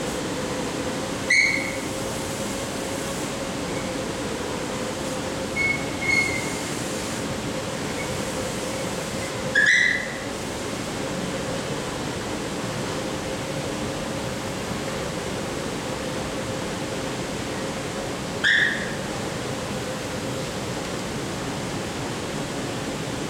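Steady machine hum of an escalator running inside an enclosed metal tube, with one low tone throughout. A few short, high-pitched whistle-like chirps cut in: about a second in, two faint ones near six seconds, one near ten seconds, and one near eighteen and a half seconds.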